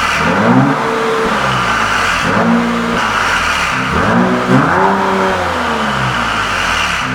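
Genesis GV70 3.5T's twin-turbo V6 revved through its custom valved exhaust, the pitch rising and falling several times in quick succession.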